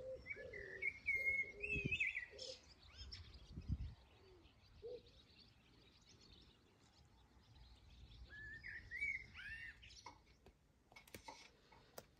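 Birds singing outdoors: quick runs of high chirps about a second in and again near nine seconds in, with a few lower calls between.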